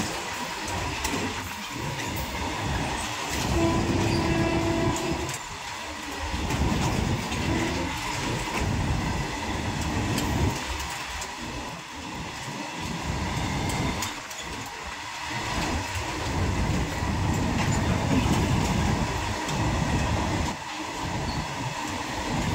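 Freight train of covered goods wagons rolling past, steel wheels clattering over rail joints in a loose, repeating rhythm with a steady thin ringing note. A fainter horn note sounds briefly about four seconds in.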